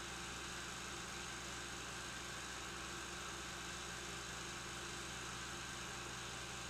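Steady low hum and hiss of an old 16mm film soundtrack, with no other sound: the background noise of the print's sound track.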